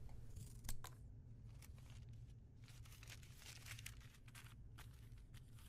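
Faint rustling of cloth as hands fold and smooth a piece of lining over a square of suit fabric on a wooden table, with a small tap about a second in.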